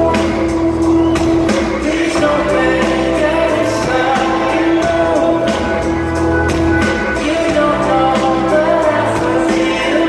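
Live rock band performance heard from among the arena crowd: drums hitting a regular beat, bass and a steady held note under sung vocals.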